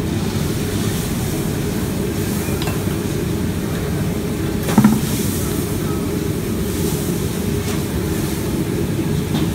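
Gas wok burners running with a steady low rush under busy stir-frying, metal ladles and spatulas clinking against the woks. One loud metal clank about five seconds in.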